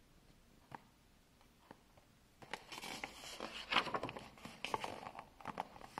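Paper pages of a picture book being handled and turned: a few faint taps, then a crackly rustle of paper from about two and a half seconds in.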